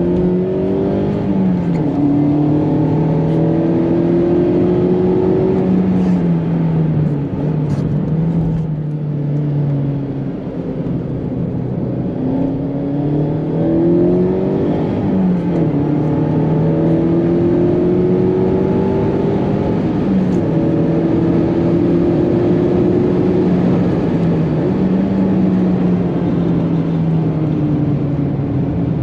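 Mazda MX-5 ND1 four-cylinder engine, heard from inside the cabin while it is driven hard on track. The engine note climbs steadily under acceleration and drops sharply several times, over a steady hiss of road noise.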